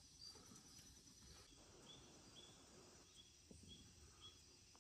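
Near silence: faint outdoor ambience with short, high chirps repeating about twice a second.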